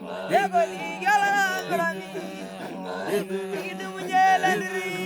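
Background music: a wordless, chant-like vocal line glides and wavers over a steady low drone.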